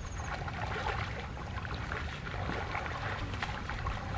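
Shallow stream water sloshing and lightly splashing around wading legs and hands, with a few faint splashes scattered through, over a steady low rumble.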